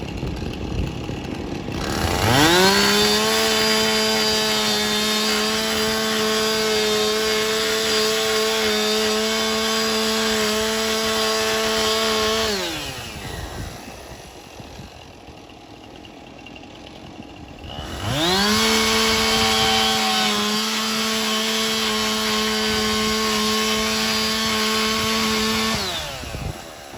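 Chainsaw revved to full throttle and held at a steady high pitch for about ten seconds, then let back down, making a ventilation cut in a roof. After a quieter lull it is revved up again for a second cut of about eight seconds and drops off near the end.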